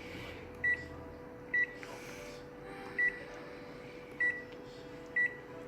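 Five short, high electronic beeps at uneven intervals about a second apart, the key beeps of a photocopier's control panel being pressed, over the machine's steady hum.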